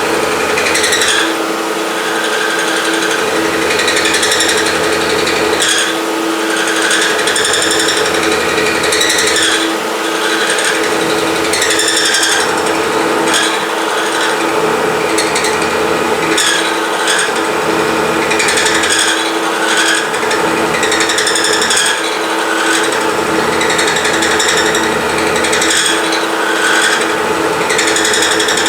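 Milling machine cutting metal with an end mill, with an air blast on the cut: a steady motor hum under a high cutting noise that swells and eases in a repeating cycle about every three seconds.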